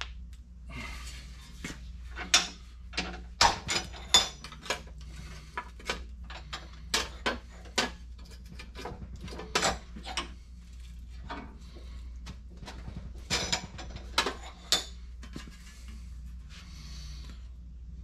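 Sheet metal clanking and rattling as a patch panel is bent by hand over the jaws of a bench vise and the vise is worked, making a string of irregular sharp metallic clacks over a steady low hum.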